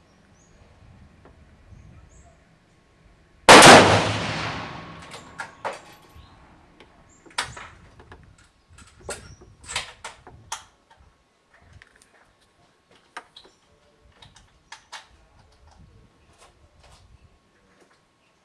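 A single .308 Winchester rifle shot from a bolt-action Tikka T3 Varmint, about three and a half seconds in, with a long echoing tail. Over the following seconds comes a string of much quieter sharp clicks and knocks.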